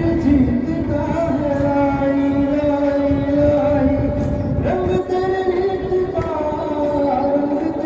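A man singing into a handheld microphone over a karaoke backing track, holding long notes.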